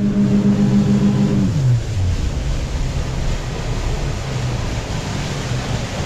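Motorboat engine running at speed under a rush of wind and water. Its note is steady at first, then drops in pitch about a second and a half in and settles into a lower rumble.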